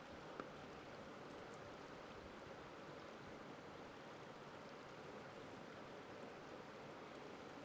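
Faint, steady rush of flowing creek water, with one brief click about half a second in.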